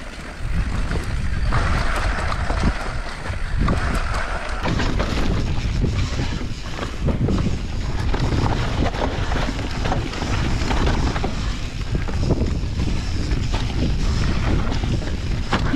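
Mountain bike descending a downhill trail, heard from an onboard action camera: wind buffeting the microphone, tyres rolling over dirt and the bike rattling and knocking over bumps.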